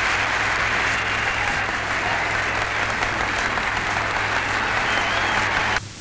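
Large hall audience applauding steadily on an old newsreel soundtrack. The applause cuts off abruptly near the end.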